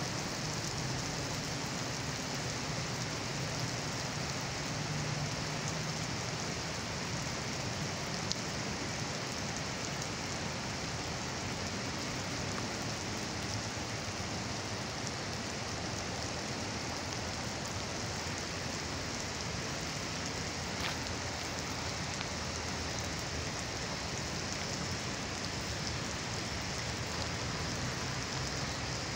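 Heavy rain falling steadily on wet asphalt pavement, drops splashing on the soaked surface.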